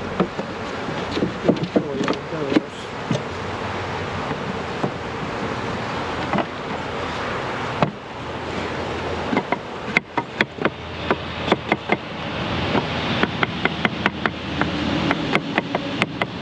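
Honeybees from a package buzzing in a dense mass, with a few louder buzzes that bend up and down in pitch in the first few seconds. Sharp knocks and taps come through it, many in quick succession in the second half.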